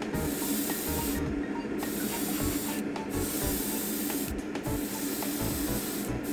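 Airbrush spraying gloss clear coat in wet coats at medium-to-heavy paint flow: a steady hiss of air and paint that stops for a moment about four times as the trigger is let off. A steady low hum from the spray booth's exhaust fan runs underneath.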